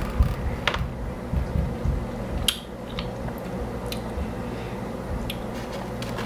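Eating sounds at a table: chewing, with scattered small clicks and taps from handling takeout food and a dipping-sauce cup, over a faint steady hum.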